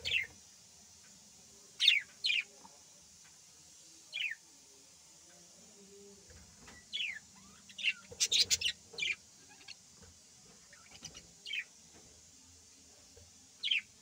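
Budgerigars chirping: short single calls that drop in pitch, spaced a second or more apart, with a quick run of several calls a little past halfway.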